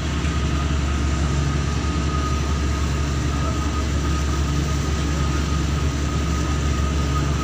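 A ferry's engines running steadily under way, a strong low drone with a thin, steady whine above it and an even rush of noise.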